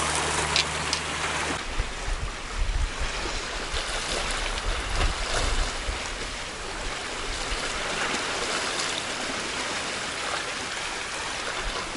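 Sea water washing and splashing against shore rocks, a steady rushing hiss. A low hum cuts out about a second and a half in, and there is some low rumble a few seconds in.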